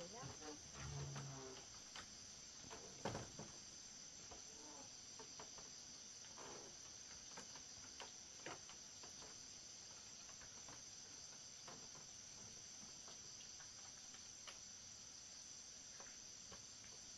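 Steady high-pitched chirring of insects, with a few faint rustles and clicks and one sharper knock about three seconds in.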